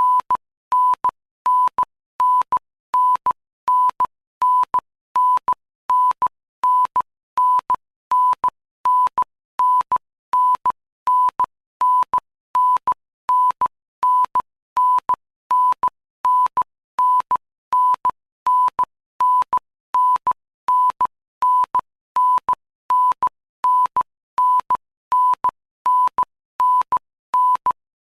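Electronic beep sound effect: short, identical beeps at one steady pitch, repeating evenly about three times every two seconds.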